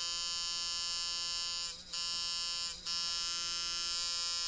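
Rebuilt Sharpz Micro Dial coil tattoo machine, tuned as a medium-stroke fast-running liner, buzzing steadily at 6.5 volts. The buzz dips briefly twice, about two and three seconds in.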